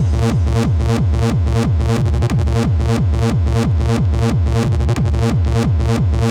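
Electronic dance music in a techno style: a fast, steady pounding kick drum with a heavy bass, each beat dropping in pitch.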